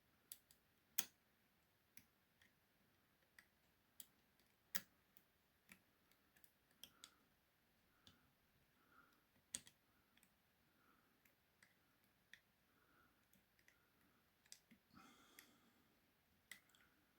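Faint, irregular metallic clicks and taps as piano-wire picks and a tension tool work the levers inside an ERA lever mortice lock, with a short scrape near the end.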